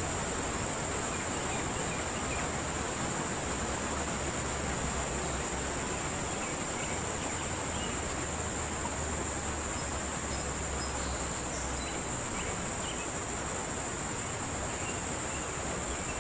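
Insects singing in a steady, high-pitched chorus.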